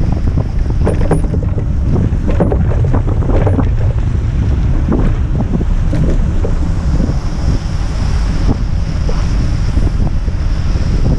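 Heavy wind buffeting on an action camera's microphone while riding a cargo bike, a loud, uneven low rumble with scattered knocks and bumps.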